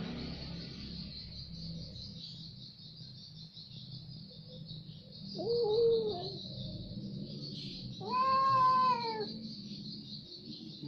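Domestic cat giving two drawn-out yowls, one about halfway through and a louder, higher one near the end, the arching calls of a cat squaring up to a monitor lizard. Crickets chirp steadily behind.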